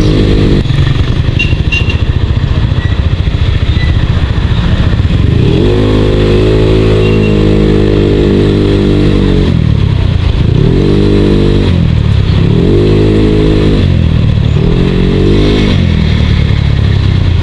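Motorcycle engine heard from the moving bike, opening up and easing off repeatedly: one long pull about five seconds in, then three shorter rises and falls in pitch.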